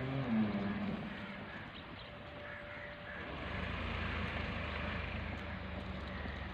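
Tractor engine running steadily, a low continuous rumble. A short pitched call, like a voice, rises over it in the first second.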